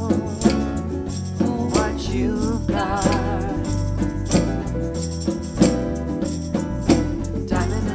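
Music with a steady beat: bass, regular percussion strokes and a wavering melody line.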